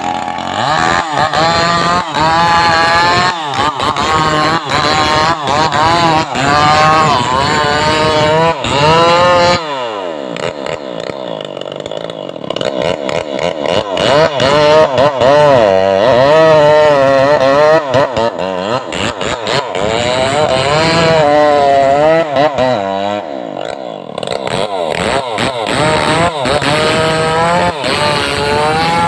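Stihl MS 381 two-stroke chainsaw running hard, cutting into wood, its engine pitch wavering up and down as the throttle is worked and the chain takes load. About ten seconds in the engine drops off toward idle, then revs back up.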